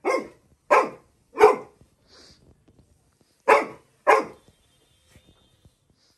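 Labrador retriever puppy barking at a balloon being blown up in front of it: three barks about two-thirds of a second apart, a pause of about two seconds, then two more.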